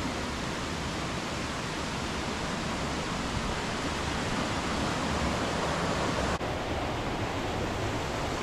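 Waterfall and river water rushing in a steady, even roar that grows slowly louder, with a brief dip about six and a half seconds in.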